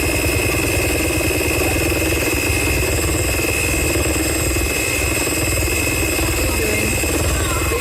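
A small electric motor running steadily, with a constant hum and a thin high whine and no change in speed.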